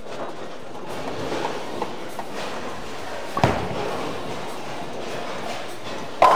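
Brunswick Intense Mindset bowling ball rolling down the lane, then hitting the pins with one sharp crash about three and a half seconds in. A sudden louder sound starts just before the end.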